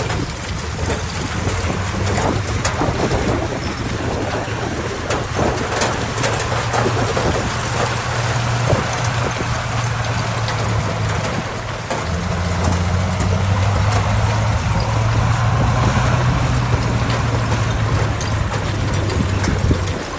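Heavy diesel earthmoving machinery running steadily, with scattered clanks and knocks in the first half; the engine note gets steadier and a little louder about halfway through.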